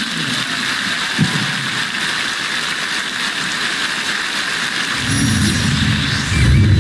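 Stadium audience applauding, an even wash of clapping. About five seconds in, a low rumble comes in beneath it.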